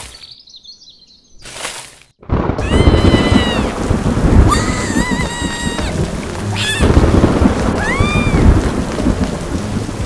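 Thunderstorm sound effect: heavy rain with rumbling thunder, coming in suddenly about two seconds in. A few short whistle-like tones rise and fall over it.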